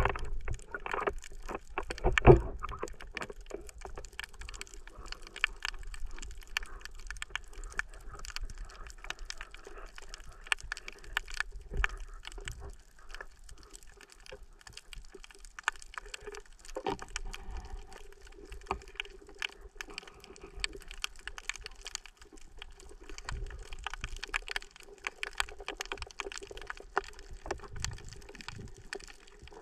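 Underwater sound recorded beneath the sea surface: a constant crackle of small clicks over a faint steady hum, with a louder slosh of water about two seconds in.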